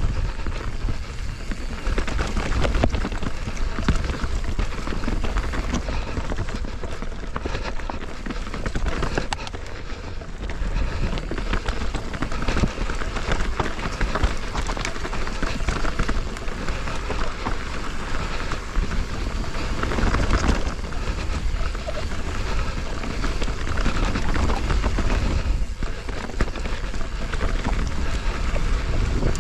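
Mountain bike riding down a dirt trail: tyres running over dirt and rock with the bike rattling, and wind buffeting the camera microphone.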